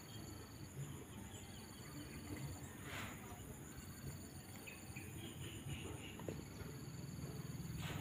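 Insects trilling: a high, pulsed trill that comes in runs of about a second with short gaps between them, over a steady high-pitched insect buzz. A faint low rumble runs underneath.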